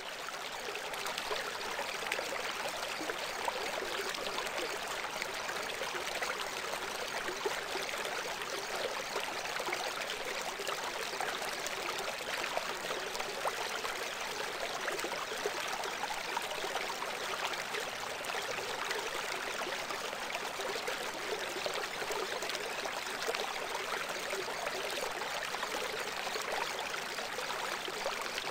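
Steady rushing noise like flowing water, even throughout and with little deep rumble. It is the masking sound bed of a subliminal audio track, laid over hidden affirmations.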